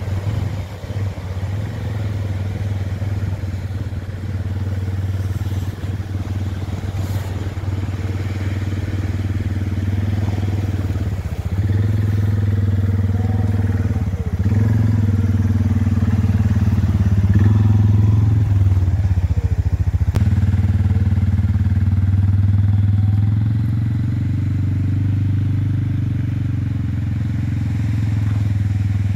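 Suzuki KingQuad 500 quad bike's single-cylinder four-stroke engine running as it is ridden, its revs dipping and picking up again several times and growing louder midway as it comes close.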